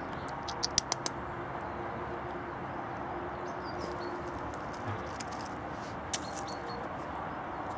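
A hen foraging on gravel and dry leaves, with a quick run of sharp clicks about a second in and one more near six seconds, over a steady outdoor background hiss. Faint short high chirps come and go.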